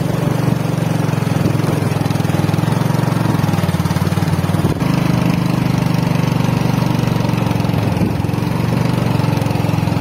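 Small motorbike engine running steadily with a rapid even pulse as the bike is ridden along a rough dirt track. The note changes a little about five seconds in.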